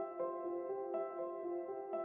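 Soft ambient background music: a slow melody of held notes, with a new note struck about once a second.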